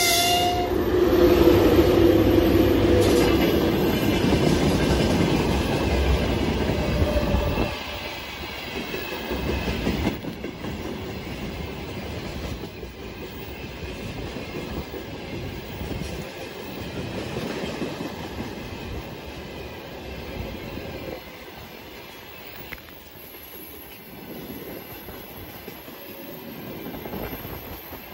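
VL80S electric freight locomotive passing close by with a steady whine and rumble, loudest for the first eight seconds or so. The sound then drops suddenly to the lower rolling noise of a long string of loaded tank cars going by, wheels clattering over the rail joints.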